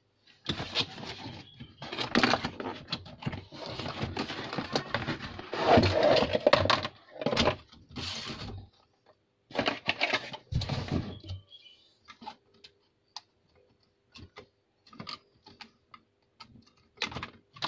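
Cardboard box and packaging rustling as a plastic toy robot is unboxed, in dense stretches for about the first eleven seconds. After that come sparse light plastic clicks as small parts are fitted to the figure.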